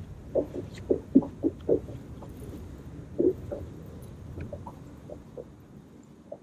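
Small waves slapping against the hull of a bass boat: a run of irregular soft knocks, thickest in the first two seconds and thinning out afterwards, over a low rumble.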